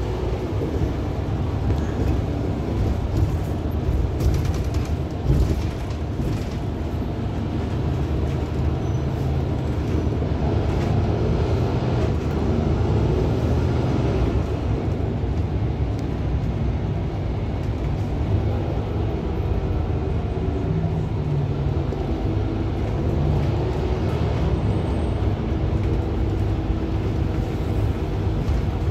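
Mercedes-Benz Citaro Hybrid city bus heard from inside the passenger cabin while driving: a steady low rumble of the running bus and its tyres on the road.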